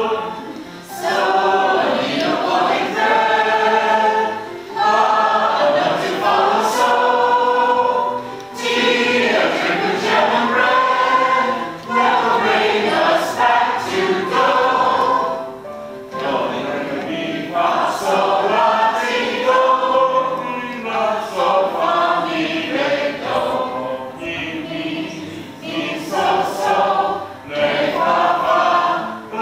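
A group of people singing a song together, in phrases with short breaks between them.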